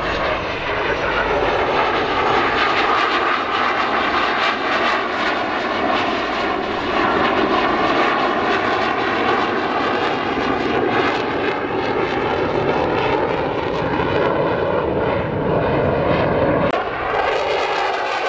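Swiss Air Force F/A-18 Hornet's twin General Electric F404 jet engines running loud and continuous in a display flight, the tone wavering and shifting throughout. There is a brief dip about a second before the end, then a sweeping change in pitch.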